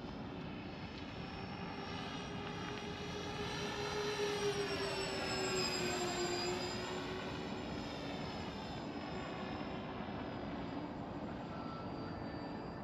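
FlightLine B-24 Liberator radio-controlled model's electric motors and propellers whining in flight. It gets louder as it passes close midway, and the pitch dips and then climbs back as it goes by.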